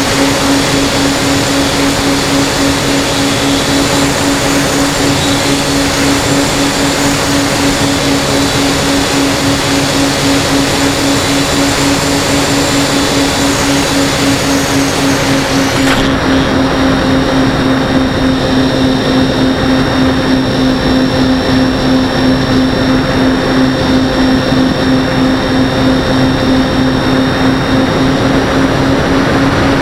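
Propeller-driven FPV aircraft's motor and propeller droning at a steady, constant speed, loud and close as if heard on board. About halfway through, the high hiss above the drone dulls abruptly.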